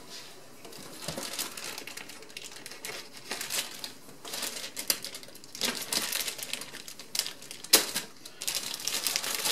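Clear plastic bag crinkling and crackling as hands handle it and a kitchen knife slits it open, in irregular bursts with a sharp crackle about eight seconds in.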